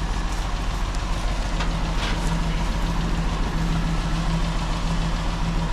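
Engine of the hunting buggy running steadily at idle, a low even hum.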